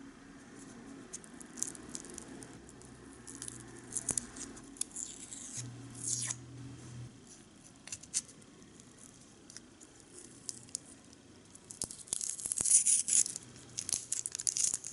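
Dry, papery onion skin crackling and tearing as it is peeled off a small whole onion with a tiny knife and fingers. Scattered small crackles build to a dense run of crinkling near the end.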